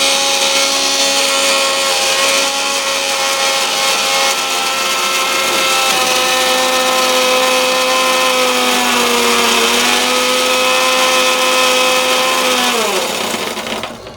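Electric mixer grinder (mixie) motor running at full speed with a steady whine while it grinds small onions with a little water into a paste. Its pitch sags briefly about nine seconds in, then it winds down and stops near the end.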